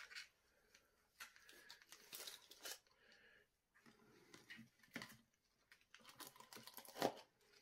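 Faint rustling and crinkling of tissue paper and dry leaves being handled in a small plastic tub, with a sharper click about seven seconds in as a clear plastic lid is pressed on.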